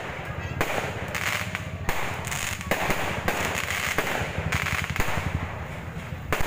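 Aerial fireworks bursting overhead: an irregular run of sharp bangs and crackles.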